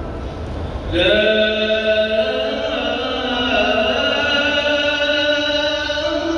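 A man's voice chanting in long, drawn-out melodic phrases. A new phrase begins about a second in and is held for several seconds, moving slowly from pitch to pitch.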